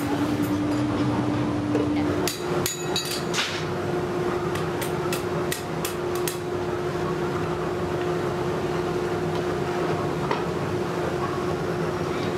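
Sharp metallic knocks and clanks as a metal casting mould is struck and opened to free a freshly cast aluminium part, in clusters about two seconds in and again about five seconds in, with a few single knocks later. A steady machine hum runs underneath.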